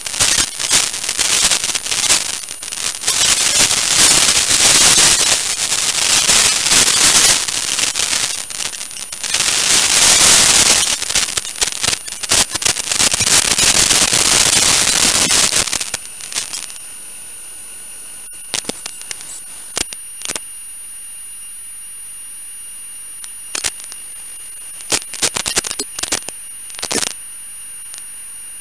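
Loud crackling static hiss from an analog 5.8 GHz FPV video receiver as the video signal breaks up. About sixteen seconds in it drops suddenly to a quieter steady hiss with a faint high whine and occasional sharp crackles as the signal clears.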